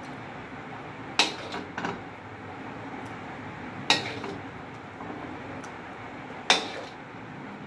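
A steel spoon clinking against a wok and a ceramic serving bowl while scooping out gravy: three sharp clinks about two and a half seconds apart, the first followed by two lighter taps, over a steady background hiss.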